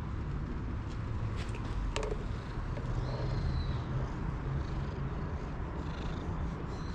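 Tabby cat purring steadily while its chin and cheeks are scratched, close to the microphone. Two sharp clicks come about a second and a half and two seconds in.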